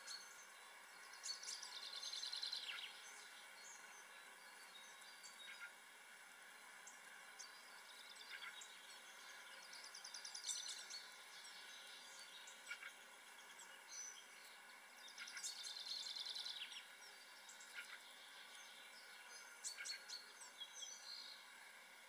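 Faint birdsong: a songbird repeats a short trilled phrase about every seven seconds, with scattered chirps and a few faint ticks in between.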